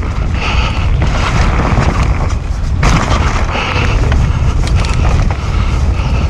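Mountain bike ridden along a dirt forest trail: wind buffeting the camera microphone as a loud rumble, over the hiss of tyres on the dirt and scattered clicks and knocks from the bike.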